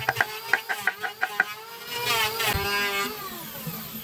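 Electric power tool motor whirring up, changing speed and winding down, with a quick run of sharp knocks in the first second and a half.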